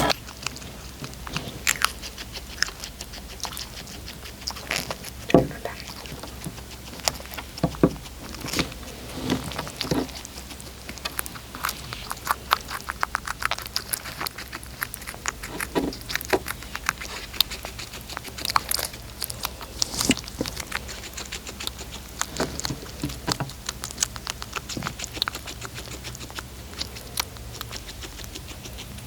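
A cat eating, its chewing and biting heard as a run of irregular small crunches and clicks.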